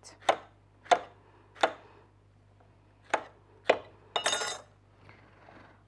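A kitchen knife slicing through zucchini and striking the countertop, about five separate cuts at an uneven pace. Just past the fourth second comes a brief scraping clatter as the cut slices are pushed across the counter.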